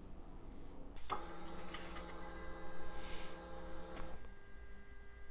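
Suzuki V-Strom 800DE's electric fuel pump priming as the ignition is switched on. A click about a second in, then a steady electric whir with a high whine for about three seconds that cuts off sharply, leaving a faint steady hum.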